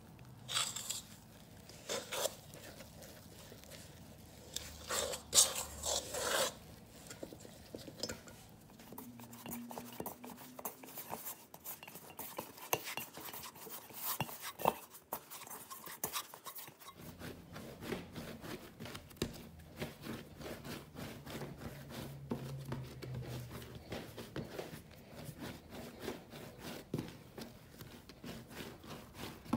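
Hands kneading soft, sticky dough, pressing and scraping it against a stainless steel bowl, with a few louder bumps in the first six seconds, then kneading it on a wooden board near the end.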